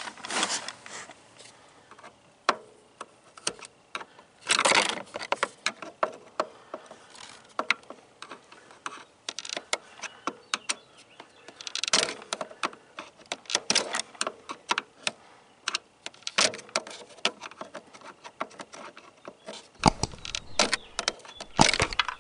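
Irregular clicks, taps and scrapes of a screwdriver working at the plastic shifter linkage pin, picking off what is left of the old, failed shifter cable bushing. A few clicks are louder, with heavier knocks near the end.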